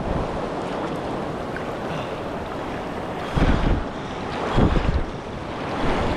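Steady rush of a mountain river's flowing water, with wind buffeting the microphone in three short low gusts about three and a half, four and a half and six seconds in.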